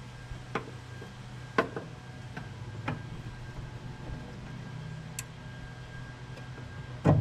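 Scattered metallic clicks and clinks of a socket and wrench against a brake line fitting, about half a dozen at irregular intervals, the loudest near the end. A steady low drone runs underneath.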